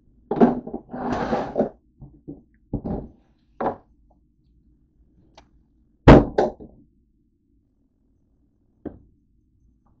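Handling and rummaging in the kitchen cabinet under the sink: a run of knocks and a short rustle, then a loud wooden thunk about six seconds in as the cabinet door shuts, and one last small knock.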